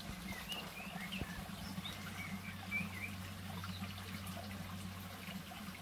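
Small birds chirping in short, scattered calls over the faint, steady trickle of a shallow stream.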